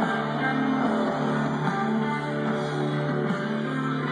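Guitar rock music playing through homemade cone-speaker cabinets during a speaker test, steady and fairly loud. The sound is thin in the deepest bass.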